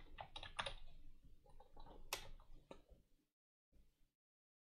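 Faint computer keyboard typing: a quick run of key clicks that stops about three seconds in.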